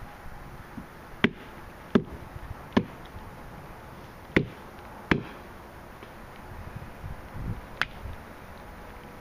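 Wood being chopped: six sharp strikes at uneven intervals, with a few low thuds shortly before the last one.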